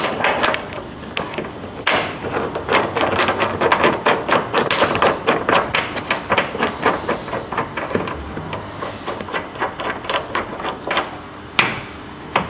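A steel mount bracket and bolt being fitted to a car's underbody, metal clicking on metal in a quick run of about five clicks a second, with one sharper click near the end.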